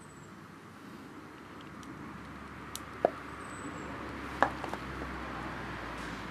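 Molten lead poured from a ladle into a cockle shell clamped in locking pliers: a quiet steady hiss that slowly grows louder, with a few light metal clicks about halfway through as the ladle touches the shell and pliers.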